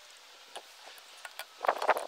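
PVC pipe and fittings being handled: a few light plastic clicks, then a quick cluster of louder plastic knocks and clatter near the end.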